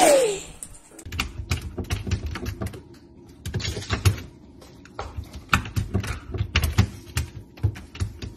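A short, rising-then-falling dog whine at the very start. Then a puppy's paws and claws tapping and scrabbling against an open fridge freezer drawer as it jumps up on its hind legs: rapid, irregular clicks with soft thumps.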